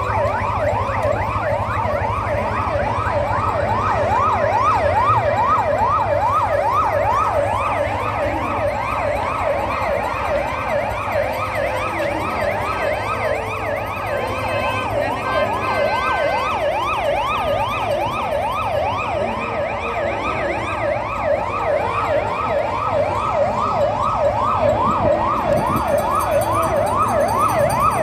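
Electronic siren sounding a fast yelp, its pitch sweeping up and down rapidly and without a break.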